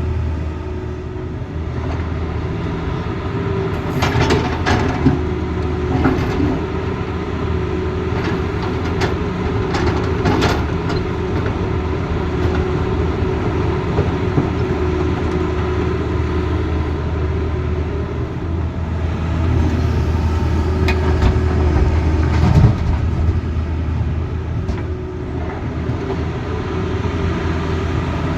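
Diesel engine of a Tata Hitachi Zaxis excavator running steadily under working load while it loads a dump truck. A few short knocks stand out over the engine drone, near the start, around the middle and again later.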